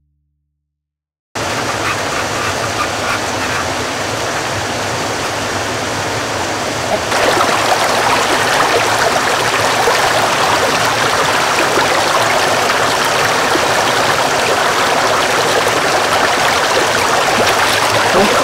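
Shallow stream flowing and gurgling over rocks, a steady rush of water that starts after about a second of silence and grows louder about seven seconds in.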